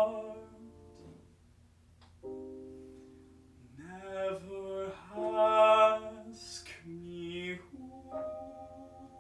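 Classical art song for male voice and piano. A held sung note fades in the first second, then soft piano chords follow. A short sung phrase comes in the middle, and sustained piano chords close it out.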